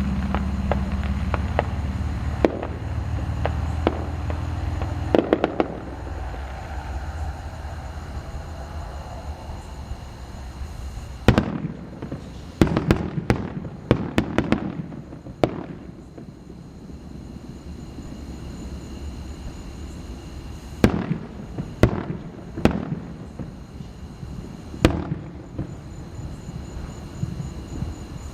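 Fireworks display: sharp bangs of shells bursting, a cluster of them about eleven seconds in and more spaced out after twenty seconds, over a low rumble that fades during the first few seconds.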